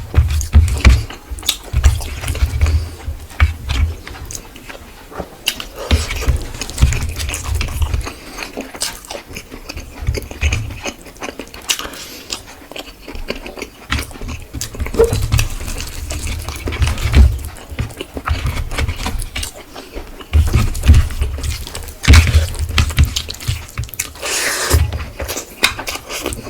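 Chewing and lip-smacking while eating fish with rice and curry: wet mouth clicks and smacks, coming in bouts with low thumps.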